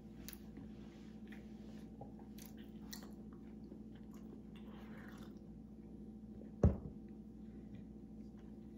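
Close mouth sounds of a person chewing a waffle, with small crunches and clicks, then sipping from a small drink carton. About two-thirds in comes one sharp loud knock, the carton being set down on the table. A low steady hum runs underneath.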